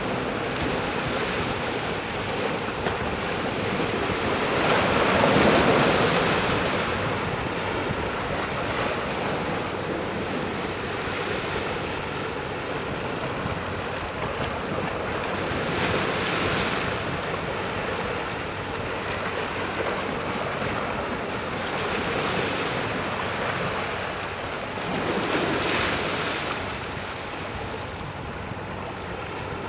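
Steady rushing of wind on the microphone mixed with the wash of water along a passing container ship's hull. It swells loudest about five seconds in and again around sixteen and twenty-six seconds.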